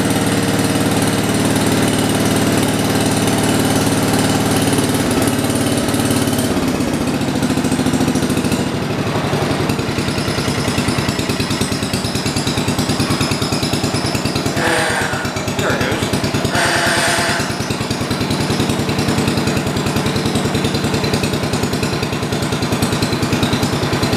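The John Deere 312 garden tractor's single-cylinder Kohler engine running steadily. Its note changes about six seconds in and turns into a rougher, evenly pulsing run. Two short higher-pitched sounds come about fifteen and seventeen seconds in.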